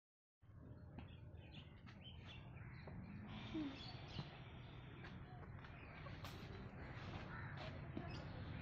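Faint outdoor background with birds calling, crow-like caws among them, and scattered light clicks.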